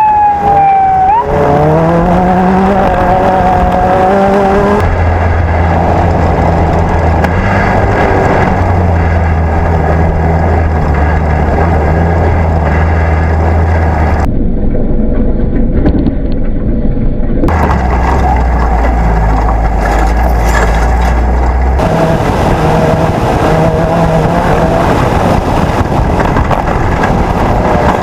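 Off-road race buggy engines running hard, one revving up with a rising pitch a second or so in. The engine sound then holds steady and changes abruptly several times.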